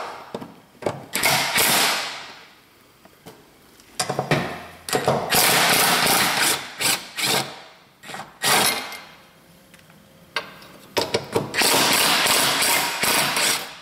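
Cordless impact wrench hammering, run in several bursts to spin out the transmission cross-member retaining bolts; the longest burst lasts a couple of seconds near the middle.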